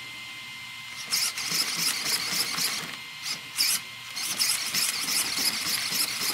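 Steering servo of an Arrma Kraton buggy whining in short, quick bursts as the front wheels are swung rapidly from side to side, starting about a second in, with a brief pause midway. The owner finds it faster and more powerful since fitting the new Hobbywing ESC. A faint steady high tone from the powered-up electronics runs underneath.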